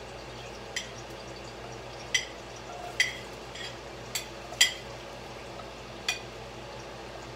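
A metal spoon scraping chopped red onion off a plate into a cooking pot. It clinks sharply against the dishware about seven times, at uneven intervals, over a steady hiss.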